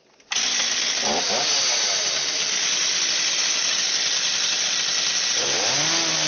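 A machine runs loudly with a steady rushing noise after a brief silence. A motor's pitch dips and rises about a second in, and again near the end.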